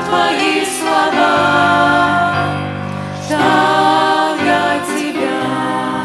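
A small mixed choir of adult and children's voices singing a Christian hymn, phrase after phrase, the sound starting to die away near the end.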